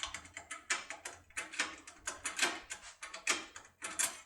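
Safe lockpick rattling and clicking against the levers of a lever safe lock, a quick irregular run of small metallic clicks, about four or five a second, as the tool is held under tension and rocked up and down. The clicking stops just before the end.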